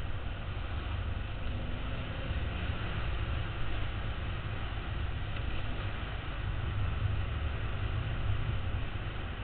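Dual-sport motorcycle engine running steadily under way on a dirt trail, heard from a helmet-mounted camera with wind buffeting the microphone.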